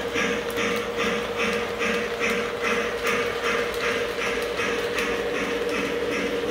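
Model train running: an even chuffing beat, about two and a half a second, over a steady hum.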